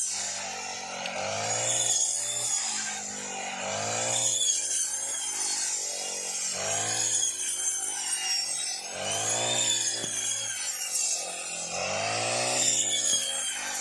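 Brush cutter engine revving up and falling back in regular swells, about five times, as the blade sweeps through rice stalks, with a rasping cutting noise over the engine.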